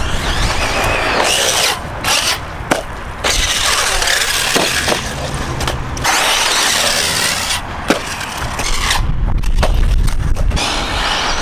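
ARRMA Typhon 6S BLX brushless electric RC buggy driving hard on a dirt track: loud whine from the motor and drivetrain mixed with tyre noise on dirt and gravel. The sound cuts out briefly several times as the throttle comes off, then returns.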